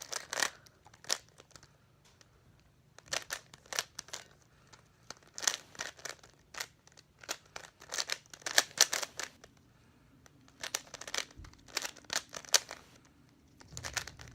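An ordinary Rubik's cube, not a speed cube, being turned fast by hand: bursts of plastic clicks and clacks as its layers are twisted, broken by short pauses.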